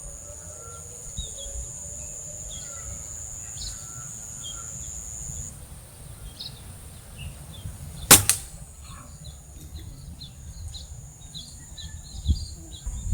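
A single air rifle shot about eight seconds in, one short sharp crack, among scattered chirps of small birds. A steady high-pitched whine stops about a third of the way through.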